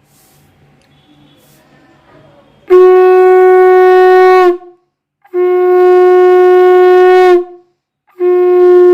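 Conch shell (shankha) blown for the Bengali evening prayer: after a short quiet, three long, steady blasts of about two seconds each, the third still sounding at the end. Each blast drops slightly in pitch as it stops.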